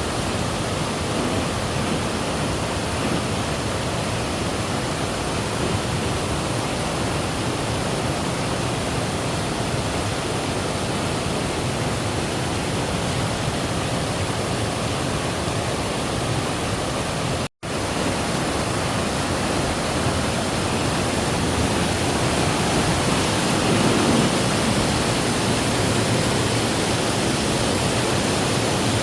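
Waterfall rushing steadily, with a split-second cut to silence about halfway through.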